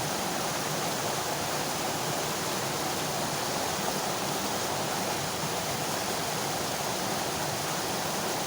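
Steady rushing of flowing stream water, an even, unbroken noise.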